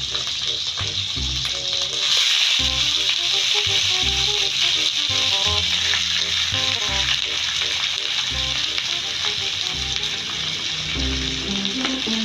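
Food sizzling as it fries in a pan, a steady hiss that grows louder about two seconds in. Background music with a pulsing bass plays underneath.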